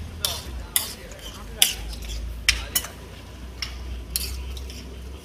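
A metal spatula scraping and clanking on a large flat iron tawa as a wet mound of chickpea curry is tossed and mashed. The strikes come in an irregular rhythm, about one or two a second.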